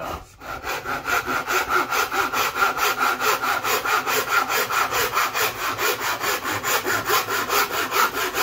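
Handsaw cutting through MDF board: after a few lighter strokes to start the cut, it settles into fast, even back-and-forth strokes, each a rasping scrape.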